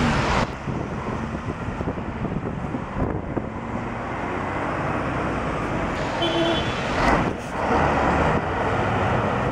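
Traffic on a wet, flooded road: vehicles passing with tyre noise on the wet asphalt, with one vehicle passing close and loudest from about seven to eight seconds in.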